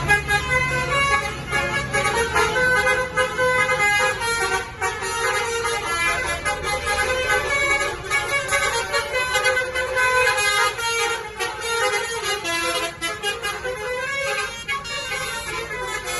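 Bus telolet horn, a set of musical air horns, playing a fast tune of changing notes over the bus's low engine rumble.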